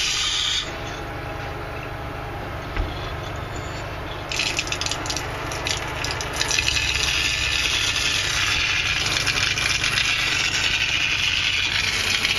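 Water spraying from a hose nozzle into a bathing tub as it fills, growing louder and fuller about four seconds in, over the steady low hum of the water pump.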